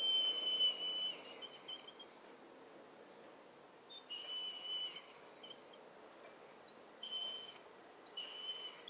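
Weimaraner whining in a thin, steady, high-pitched tone, four times with pauses between: a dog asking to be let out.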